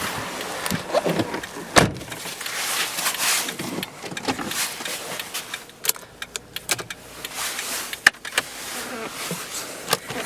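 Clicks, knocks and rustling from car cabin trim and controls being handled, with a few sharp clicks standing out.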